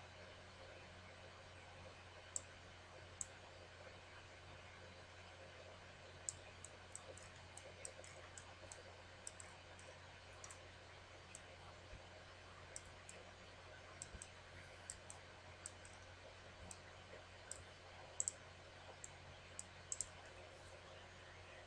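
Computer mouse clicking: sharp, irregular clicks, sparse at first, then frequent and some in quick pairs, over a faint steady low hum.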